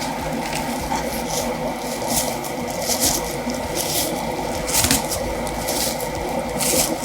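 Packaging rustling and scraping as the projector is pulled out of its box, in irregular bursts over a steady background hiss.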